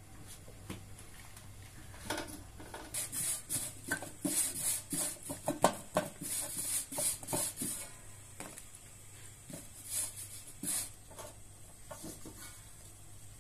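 Hands kneading bread dough on a large steel tray: a run of irregular slaps and pats starting about two seconds in, busiest for several seconds, with a shorter burst near the end.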